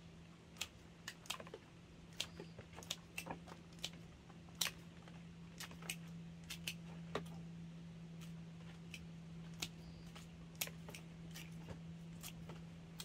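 Hand pruning shears snipping hydrangea stems into cuttings: about twenty irregular, sharp clicks over a steady low hum.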